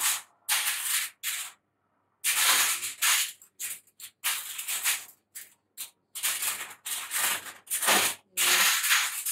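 Aluminium foil crinkling and rustling in irregular bursts, some short and some about a second long, as it is folded and pressed around a slab of pastry dough.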